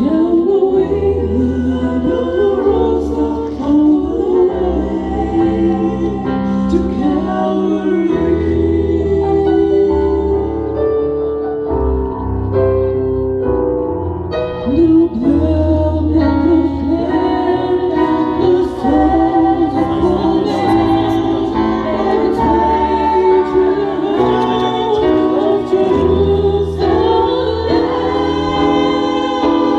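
Several young women singing a devotional song together into microphones, accompanied by an electronic keyboard holding long bass chords.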